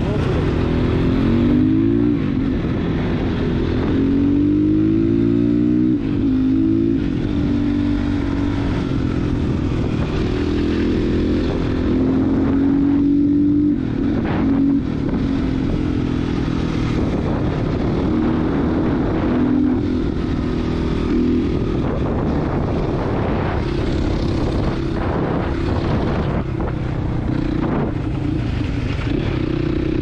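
Crossfire Cross X 250 SE dirt bike's engine running on the road, its revs climbing and dropping several times as it accelerates and changes gear, over steady wind noise on the handlebar-mounted camera.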